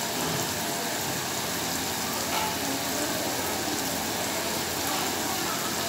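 Sliced onions, tomatoes, sweet peppers and scallion sizzling steadily in hot oil in a frying pan.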